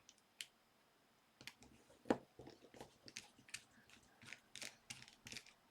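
Small screwdriver working a tiny screw out of a mobile phone's plastic housing: a run of faint small clicks and scratches, with one sharper click about two seconds in.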